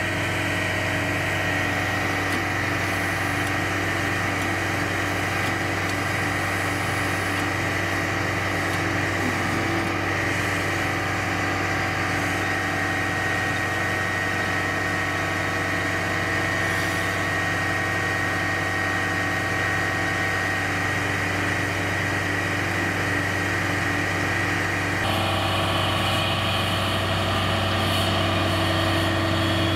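Military wrecker truck's diesel engine idling steadily, with a thin high whine over the low hum. The sound shifts abruptly near the end.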